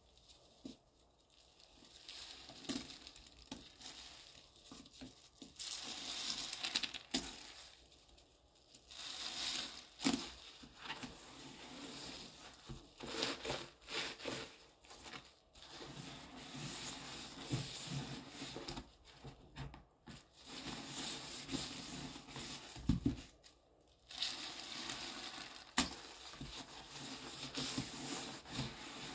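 Wet smiley-face scrub sponge rubbed and squeezed against a sink basin, working cleaning powder into a foamy paste: gritty scrubbing and squishing in bursts with brief pauses.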